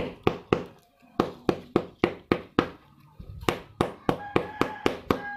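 The plastic handle of a screwdriver knocking a sneaker's freshly glued rubber sole, sharp taps about four a second in three runs with short pauses between. The tapping presses the re-glued sole down so it bonds flat.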